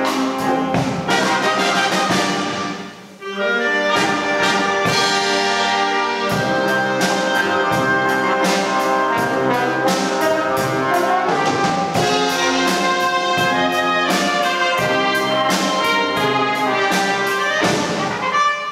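School wind band playing an arrangement of an enka ballad: trumpets, trombones, saxophones and sousaphone over a drum kit keeping a steady beat, with a brief break about three seconds in.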